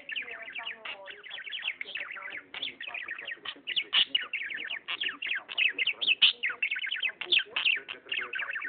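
Pet budgerigar warbling and chattering: an unbroken stream of quick chirps and trills.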